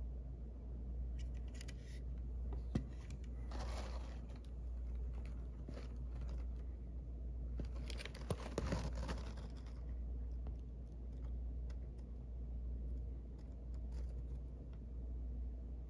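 A cardboard shipping package being handled, its paper rustling and scraping in a few short bursts, the longest about halfway through, with a single sharp click near the start, over a steady low hum.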